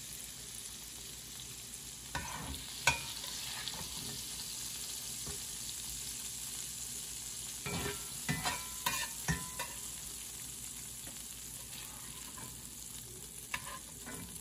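Oil sizzling steadily in a frying pan, with sharp clinks of a utensil on cookware ringing briefly, a couple of times early, in a quick cluster around the middle, and once near the end.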